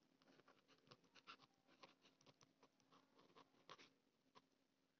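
Near silence with faint, irregular taps and scratches of a stylus writing on a tablet screen.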